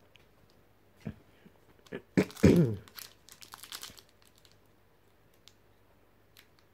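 The foil wrapper of a Pokémon trading card booster pack crinkling and tearing as it is pulled open by hand. The crackling comes in irregular bursts over the first few seconds, loudest about two and a half seconds in, then goes nearly quiet.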